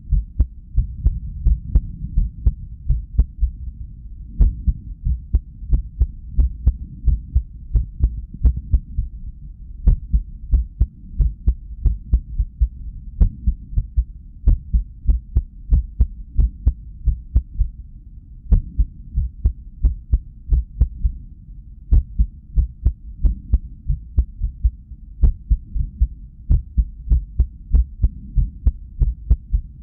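Heartbeat sound from a cardiac ultrasound recording of a resting heart: a run of low thumps at an uneven spacing, with now and then a longer pause between beats. The irregular rhythm is an arrhythmia, which the owner puts down to lack of sleep.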